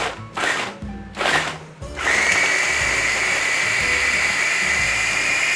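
Electric mini food chopper pulsed three times briefly, then run continuously from about two seconds in with a steady high whine as it minces ginger, garlic, shallots, coriander roots and spring onion.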